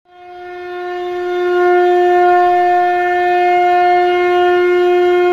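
Conch shell (shankha) blown in one long, steady note that swells in over the first couple of seconds and is then held.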